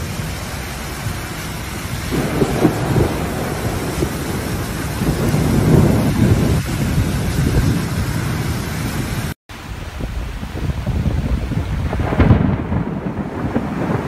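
Heavy thunderstorm: a steady rush of rain with deep rumbling swells about two, six and twelve seconds in. The sound cuts out for a moment just after halfway.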